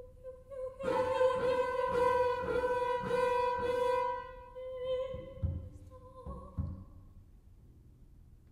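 Contemporary chamber music: one high note held steady for about five seconds, with a quick run of about five noisy, breathy strokes over it in its first half. A few soft low knocks follow.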